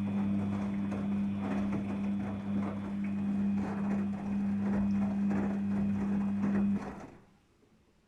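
Daewoo DWD-FT1013 washing machine running at the start of a cotton 40°C wash: a steady low hum with irregular clicks and rustling, which cuts off about seven seconds in.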